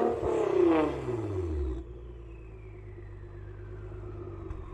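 Nissan R35 GT-R's twin-turbo V6 through a custom 4-inch valved exhaust, the revs falling back from a blip over about two seconds and settling into a steady idle. A faint falling whine runs under the idle.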